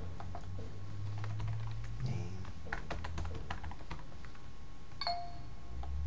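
Typing on a computer keyboard: irregular key clicks over a low steady hum, with a brief ding about five seconds in.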